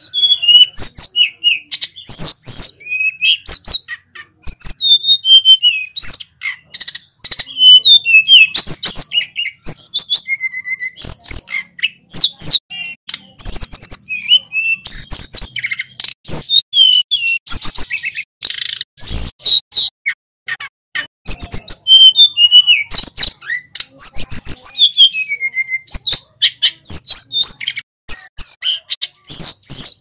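Male hill blue flycatcher (sulingan gunung) singing loudly: fast runs of clear whistled notes that slide up and down in pitch, in phrases separated by short pauses.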